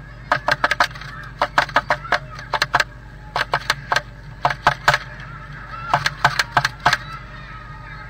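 Blue tit pecking at the inside wall of its nest box: about six quick bursts of sharp taps, four to six taps in each, over a steady low hum.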